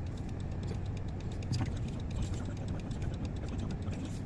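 Inside a car stopped in traffic: the engine idles with a steady low hum, overlaid by repeated light ticking clicks.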